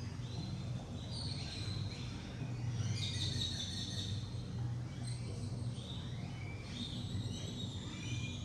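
Small birds chirping repeatedly over a steady low hum.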